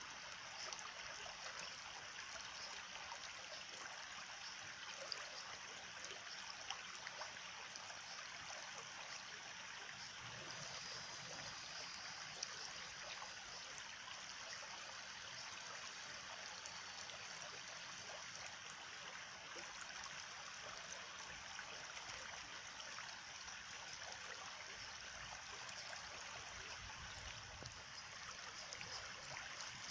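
Stream water running and trickling over stones, an even, steady babble with a few faint brief ticks.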